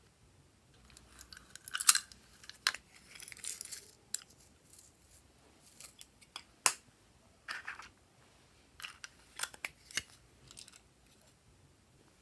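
Small crinkling rustles and scattered sharp clicks as glitter decorations and confetti pieces are handled and dropped onto slime in a tray. The loudest clicks come about two seconds in and near the middle.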